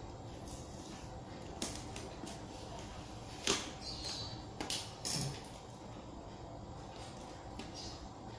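Cardboard drone packaging being opened and handled: a few short scrapes and clicks, the sharpest about three and a half seconds in and a small cluster around five seconds, over a faint steady hum.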